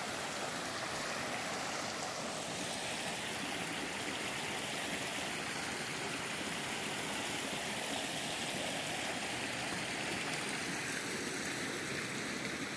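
A rocky forest creek rushing steadily, loud enough to drown out other sounds of the woods.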